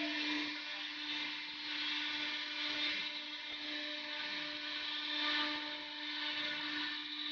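CNC router spindle turning at 18,000 rpm, its end mill cutting shapes out of a white sheet: a steady hum from the spindle under the high, even noise of the cut.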